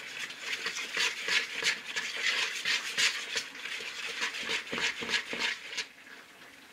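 A metal spoon stirring dumpling dough of baking mix and milk in a mixing bowl: quick scraping strokes against the bowl, about three a second, that stop near the end.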